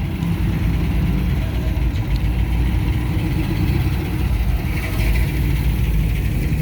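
A car engine running at low revs, a steady low rumble.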